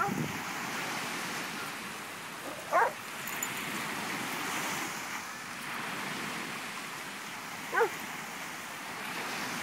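Steady wash of surf breaking on the beach, with a dog giving two short barks, one about three seconds in and one about eight seconds in.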